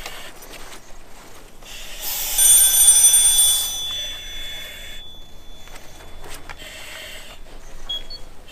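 Firefighter's PASS alarm sounding a shrill, high-pitched electronic tone, loud for about two seconds a couple of seconds in, then fading to a faint tone. The alarm signals a downed or trapped firefighter in a mayday.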